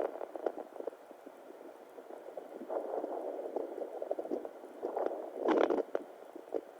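Audio from a handheld fetal Doppler on a pregnant belly: irregular whooshing swells and crackles, the loudest about five and a half seconds in.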